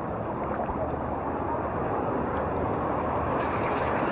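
Rushing water and wind on the microphone as a tube slides down a rapids water slide: a steady rush that gets a little louder near the end.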